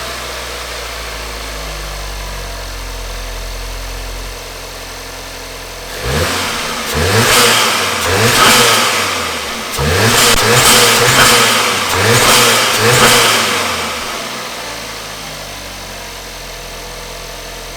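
Volkswagen Golf R's turbocharged 2.0-litre four-cylinder engine, breathing through a Unitronic carbon fibre intake, idling, then blipped through several quick revs with rising and falling pitch before settling back to idle. The engine is not yet warmed up and the revs are held below 4,000 rpm while stationary.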